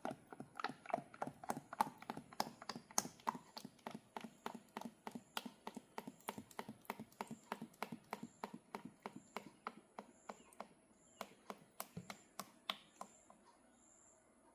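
A long run of sharp clicks, about three a second and somewhat uneven, that stops near the end.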